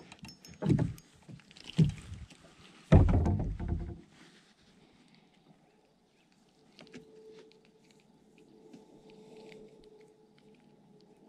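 Knocks and bumps on a kayak, several in the first four seconds, the loudest a deep thud with a rumble about three seconds in. After that, a faint steady hum.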